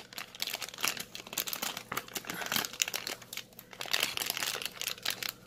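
MRE plastic heating bag and entree pouch crinkling and crackling in a rapid, irregular run as they are handled, the hot pouch being worked out of the bag.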